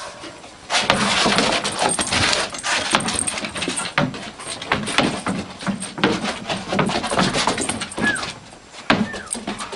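Irregular knocking and clatter on a wooden deck: balls bouncing off the boards and fence while a dog scrabbles after them. Two short falling squeaks near the end.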